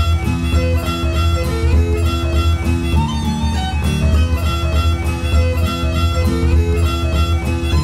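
Background music: a lively instrumental tune with a steady beat and a strong bass.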